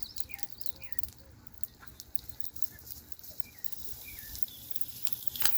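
Small birds chirping in short calls, mixed with scattered sharp crackling clicks and one loud snap about five and a half seconds in.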